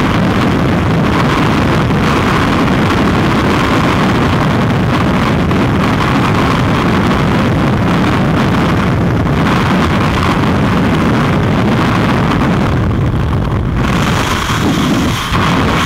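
Loud, steady wind noise rumbling and buffeting on the microphone, with a short dip near the end.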